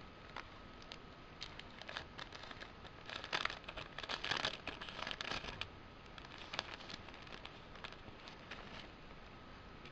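Crinkling and rustling of a CD's thin sleeve being handled, with scattered crackles, busiest and loudest from about three to five and a half seconds in.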